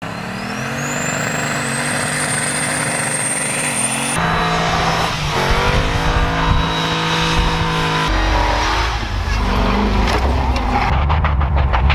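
V8 engines of swapped off-road 4x4s revving hard while driving through snow, the pitch climbing and falling with the throttle. The sound changes abruptly about 4 and 8 seconds in as different vehicles take over.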